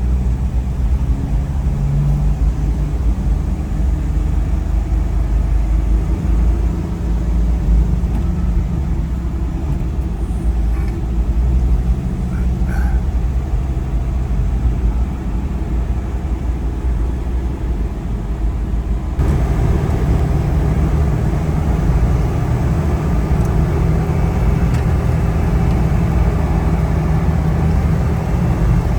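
Steady low rumble of a vehicle's engine and road noise while on the move. The sound changes abruptly about two-thirds of the way through.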